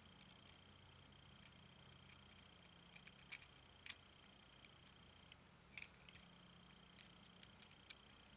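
Near silence with scattered faint metallic clicks and ticks: a small screwdriver turning a clamp screw into the post of a stainless steel rebuildable dripping atomizer (RDA) deck.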